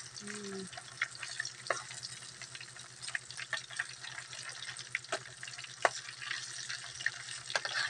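Oarfish pieces frying in hot oil in a nonstick pan: a steady sizzle with frequent sharp crackles and pops, and a slotted spatula scraping and clicking against the pan as the pieces are moved and turned.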